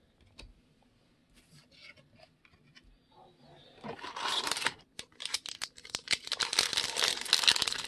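A 2009 Upper Deck Signature Stars trading-card pack being torn open: a few faint taps of handling, then from about four seconds in a dense run of wrapper tearing and crinkling.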